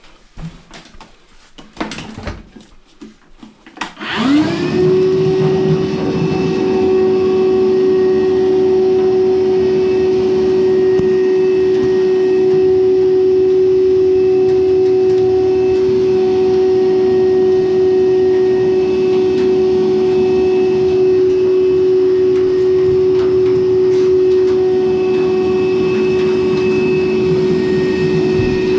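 A few light clicks, then about four seconds in a Frigidaire clothes dryer starts: its motor spins up with a quickly rising whine and then runs with a steady hum and whir.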